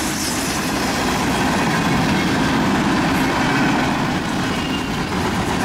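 Freight train boxcars rolling past close by: a steady rumble of steel wheels running on the rails.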